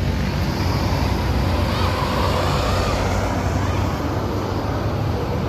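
Diesel intercity bus engine running steadily close by, over road traffic noise.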